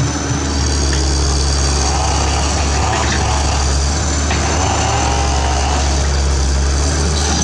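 Komatsu PC130F hydraulic excavator's diesel engine running steadily with a deep, continuous drone while the machine swings its upper structure, with a few faint clicks over it.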